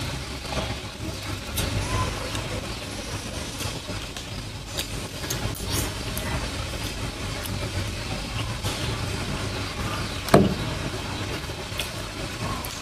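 Eating sounds, with scattered sharp clicks and clinks of spoon and bowl, over a steady low rumble like an idling engine or traffic. One louder sound comes about ten seconds in.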